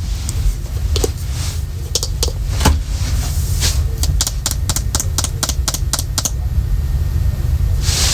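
Handling noise of plastic smoke alarms being picked up and set down: scattered sharp clicks and clacks, with a quick run of about a dozen clicks in the middle, over a steady low rumble.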